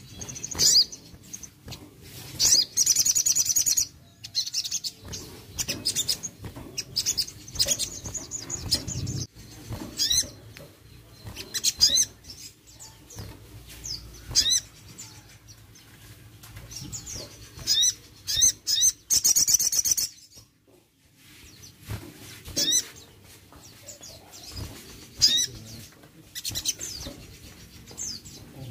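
A caged sogon songbird singing: short, sharp upward chirps repeated every second or so, broken twice by a fast, high trill, once early on and again about two-thirds of the way through. The flutter of wings sounds as it moves about the cage.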